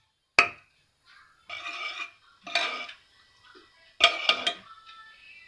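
Spoon clinking and scraping against a cooking pan as desi ghee is spooned in: a sharp clink about half a second in, two short scrapes, then three quick clinks about four seconds in.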